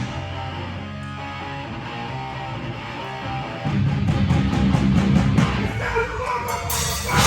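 Live band playing a heavy rock song. The first half is a quieter passage led by guitar, then the full band comes in louder about halfway through, with a loud hit near the end.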